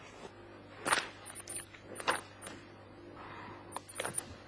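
A few sharp knocks over faint room noise, the loudest about a second in and others near two and four seconds.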